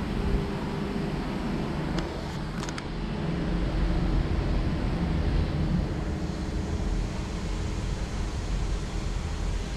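Electric vertical multistage water pumps running with a steady hum.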